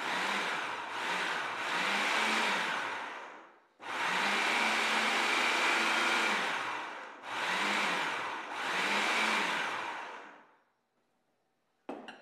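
Countertop food processor pulsing cold butter into flour for pie-crust dough: the motor whirs up and down in short bursts, one longer run in the middle, until the butter is cut to coarse meal. It winds down near the end, followed by a brief clatter.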